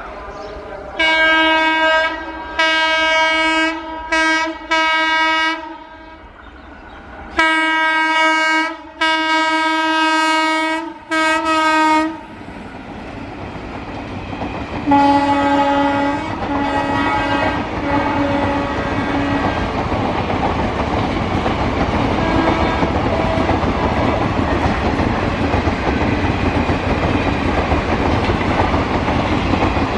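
Indian Railways electric locomotive's twin-tone horn sounded in long, repeated blasts, four then three, through the first twelve seconds. A lower-pitched horn follows with a few short blasts around the middle. Then the steadily growing rumble and wheel clatter of an express train passing at speed.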